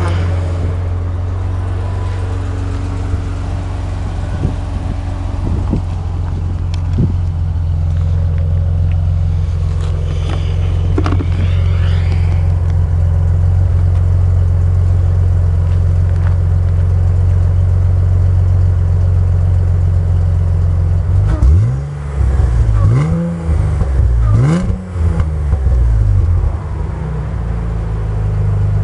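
1992 Ford Thunderbird Super Coupe's supercharged 3.8-litre V6 idling steadily through a 3-inch exhaust with Magnaflow resonator and mufflers. About three-quarters of the way through it is revved three times in quick succession, each rev rising and falling, then settles back to idle.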